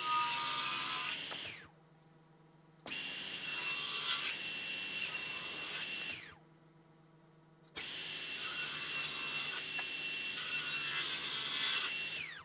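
A SawStop table saw running and cutting a rebate along the edge of boards. There are three stretches of saw noise, each starting and stopping abruptly, with short quiet gaps of low hum between them.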